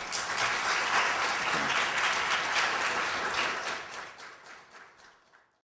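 Audience applauding, steady for a few seconds, then dying away and fading out near the end.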